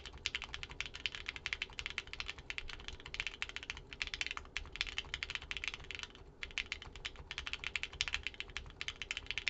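Fast, continuous typing on a Cosmo60 prototype mechanical keyboard: aluminum case, O-ring mount, aluminum plate, Gateron Hippo switches and GMK Space Cadet keycaps. There is a brief pause about six seconds in.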